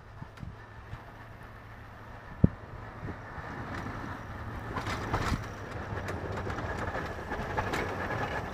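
Pickup truck plowing snow with a V-plow: its engine and the pushing blade grow louder as the truck approaches. One sharp knock comes about two and a half seconds in.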